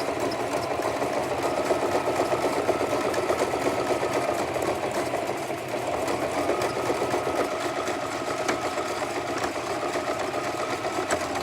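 Sewing machine running at speed, stitching two hair wefts together to double the tracks, with a brief slowdown about halfway through; it stops near the end.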